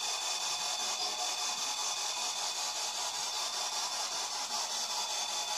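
Steady background hiss of a quiet room, with a faint high steady whine running through it and no distinct sounds.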